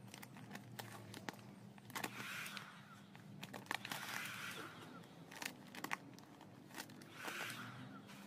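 Matte black vinyl wrap film crinkling and crackling as it is stretched and pressed by hand over a motorcycle body panel, with irregular sharp crackles and a few short patches of hiss, over a faint steady low hum.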